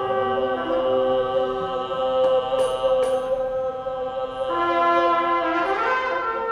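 Trumpet playing long held notes, with several pitches sounding together as a sustained drone-like chord; the lower notes change while one middle note stays steady. A few faint clicks sound about two to three seconds in.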